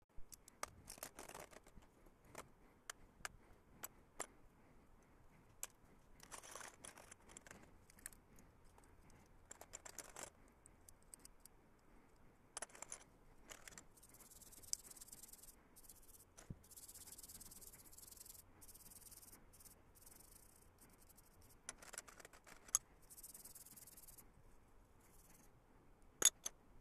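Small metal parts of a knife being handled: faint scattered clicks and short scraping rattles, with several stretches of high hiss in the second half.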